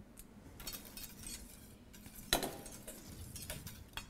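Metal kitchen utensils, a whisk and a spoon, clinking and scraping against a stainless-steel mixing bowl in light, scattered strokes, with a sharper clink a little over two seconds in.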